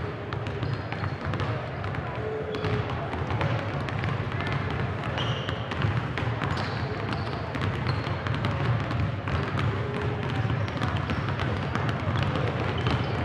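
Several basketballs dribbled at once on a hardwood gym floor: a dense, uneven patter of bounces. Voices murmur in the background.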